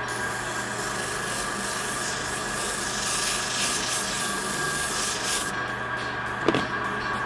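Disc sander running while the rubber sole of an old shoe is pressed against the spinning abrasive disc, a steady scrubbing hiss over the motor's hum; this is the way to clean a clogged sanding disc. About two-thirds of the way through, the shoe comes away and only the motor's hum is left, with a single knock near the end.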